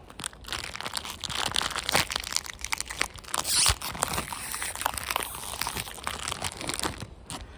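A plastic biscuit packet crinkling and crackling as it is handled and opened, with one louder burst about halfway through.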